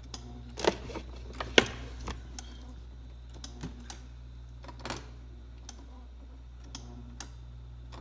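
Scattered, irregular light clicks and taps around a Samsung refrigerator's ice maker, the sharpest about a second and a half in, over a steady low hum from the open fridge.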